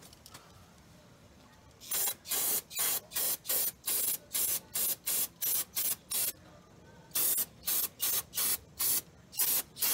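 Aerosol spray can with a straw nozzle sprayed in a rapid series of short hissing bursts, about three a second, starting about two seconds in, with a brief pause a little past the middle.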